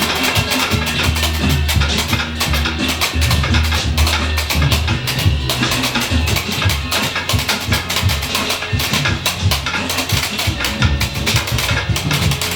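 Music with busy drum and percussion hits over a deep bass line.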